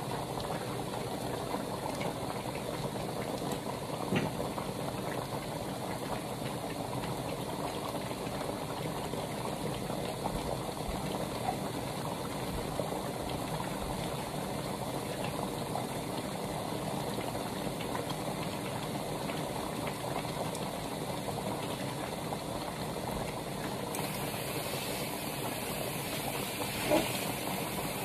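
Thick orange beef sauce boiling hard in a large stovetop pan, a steady bubbling as it cooks down and thickens. Two brief knocks, about four seconds in and near the end.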